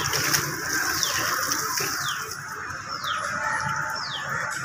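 A bird repeating a short down-slurred whistle several times, over a steady wash of running water.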